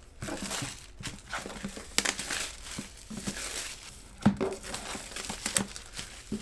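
Plastic shrink-wrap crinkling and crackling as it is handled and peeled off a cardboard box, with a few sharper crackles among the rustling.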